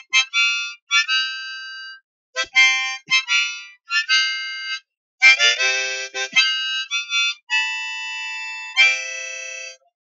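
Harmonica playing a melody in short phrases with brief pauses between them, some notes sounded as chords, and one longer held chord near the end.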